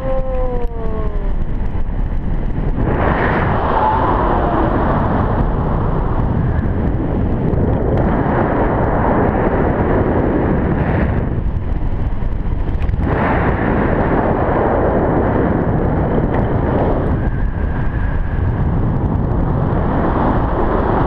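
Loud, steady wind buffeting an action camera's microphone in flight under a paraglider, a rumbling rush that swells and eases every few seconds.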